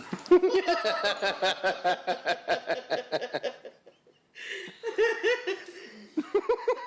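A person laughing in a long run of quick, high-pitched ha-ha pulses, breaking off about four seconds in and then laughing again.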